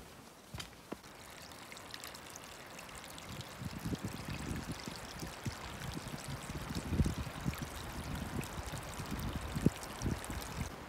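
Small shallow mountain creek trickling over stones and through wet meadow grass, a steady splashing hiss that grows louder over the first few seconds. Low thuds join it from about four seconds in.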